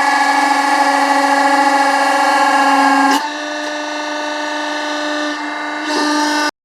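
Log splitter running with a steady mechanical hum, dropping in level and changing tone about three seconds in, then cutting off abruptly near the end.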